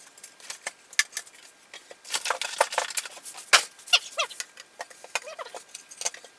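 Small metal-cased embedded computers being lifted out of a cardboard box and set down on a table: cardboard rustling and scraping, with clicks and knocks of the metal cases against each other and the tabletop. The loudest knock comes about three and a half seconds in.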